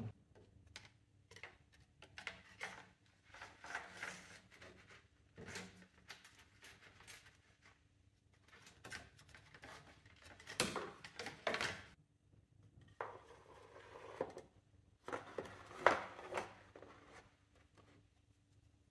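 Plastic fan shroud being handled and worked into place around the radiator and engine fan: scattered faint clicks, scrapes and knocks of plastic parts, with a few louder knocks about halfway through and again near the end.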